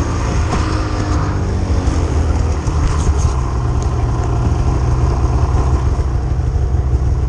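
Snowmobile engine running steadily, a continuous low rumble picked up close by a helmet-mounted camera.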